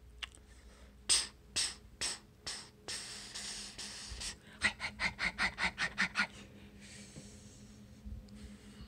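A person's breathy mouth sounds: five sharp puffs of breath about two a second, a longer exhale, then a quick run of about nine short panting breaths, roughly five a second.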